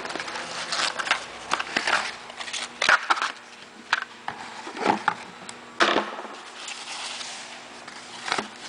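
Cardboard box and tissue paper being handled during unpacking: irregular crinkling and crackling with light knocks, the sharpest in the middle, then a softer rustle of paper near the end.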